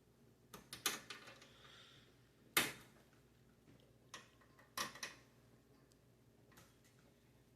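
A few separate sharp clicks and knocks of hands working on a PC case's side panel and its tight fasteners, the loudest about two and a half seconds in.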